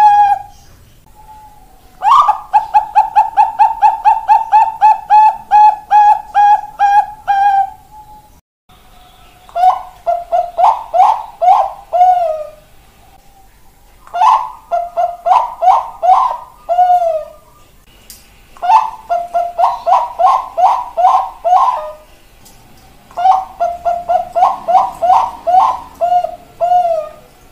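Zebra dove (perkutut bangkok) cooing its song. A long, even run of rapid coos at one pitch comes first. It is followed by four shorter phrases of quick bubbling coos, each ending in a lower drawn-out note, a few seconds apart.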